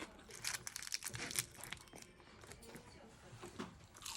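Crinkling and tearing of food packaging: a dense run of sharp crackles for about a second, then scattered clicks.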